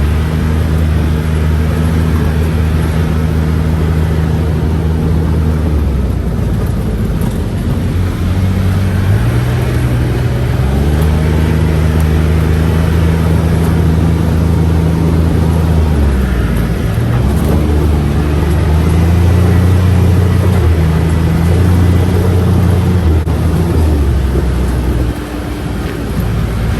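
Side-by-side UTV engine running while being driven, its low drone steady for stretches and then shifting up and down in pitch several times as the throttle changes.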